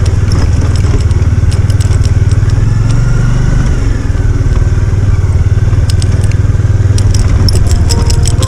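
Bajaj Dominar's single-cylinder engine running with a steady low rumble as the motorcycle rides over an unpaved gravel road, with scattered sharp clicks and crackles from stones under the tyres that come thicker near the end.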